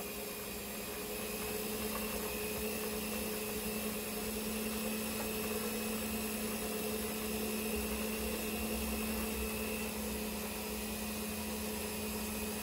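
Electric stand mixer running steadily, its beaters mixing chocolate cake batter in the bowl: an even motor hum, not very loud.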